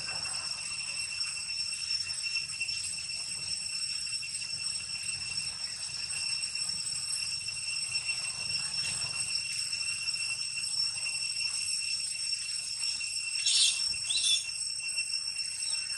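A steady high-pitched drone of several tones. Near the end, two short high squeals from a baby long-tailed macaque as a juvenile grabs it.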